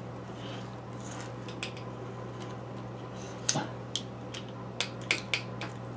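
Scattered light clicks and ticks from a small glass salt shaker being handled and twisted over a plastic mixing bowl, with a few more clicks in the second half over a steady low hum.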